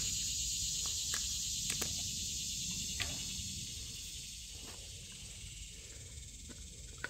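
Insects singing in a steady high-pitched drone that fades gradually, with a few faint clicks.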